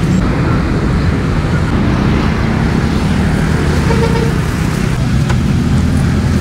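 Steady road traffic noise: a constant low rumble of passing cars and motorbikes.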